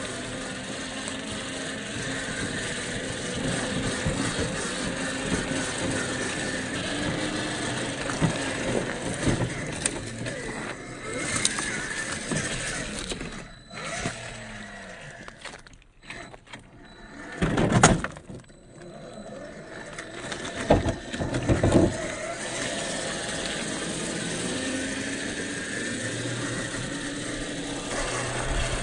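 1/10-scale RGT EX86190 LC76 RC crawler's 550 motor and gearbox whining as it drives, the pitch rising and falling with the throttle. A few louder bursts of noise come about halfway through.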